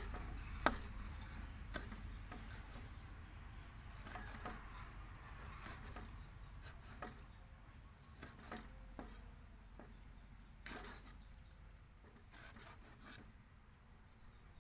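Cleaver slicing fresh red chilies on a round wooden chopping block: irregular light knocks of the blade on the wood, spaced a second or more apart, the two sharpest about a second in.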